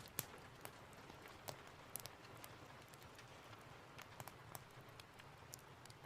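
Faint steady rain hiss with scattered sharp clicks and pops at irregular intervals.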